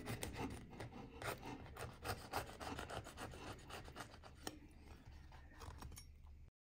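A knife cutting around the lid of a baked bread-dough pot, the blade rasping and crackling through the crisp crust in short, irregular strokes. The sound cuts off abruptly near the end.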